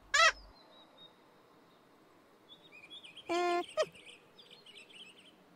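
Background birdsong chirping faintly, with a short squeaky sound right at the start and a brief, steady hooting tone a little past the middle, which is the loudest sound.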